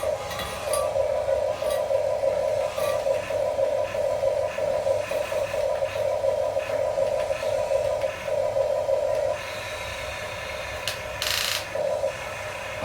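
Small electric gear motors of a mini RC construction toy whirring in repeated short bursts as the controls are worked. They pause for about two seconds near the end, where a brief scraping hiss is heard.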